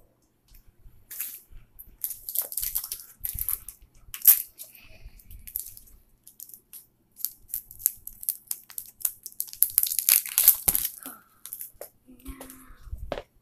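Foil Pokémon booster pack wrapper crinkling and being torn open, in irregular runs of sharp crackles.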